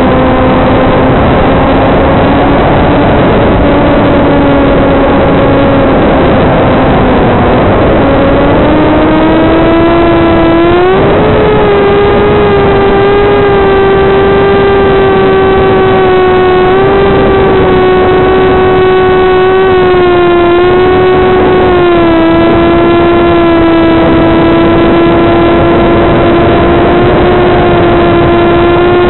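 Brushless electric pusher motor and propeller of a TBS Caipirinha II flying wing, picked up on the FPV video link's audio: a steady, buzzy hum. About eight seconds in, the pitch rises as the throttle comes up for a climb, and it holds at the higher pitch with small wavers.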